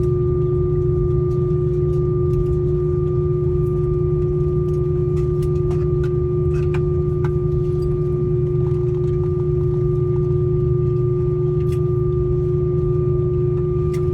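Airbus A319 cabin at rest: a steady hum with a constant tone and a fainter, higher whine over a low rush of air from the aircraft's air-conditioning and electrical systems. A few faint clicks sound through it.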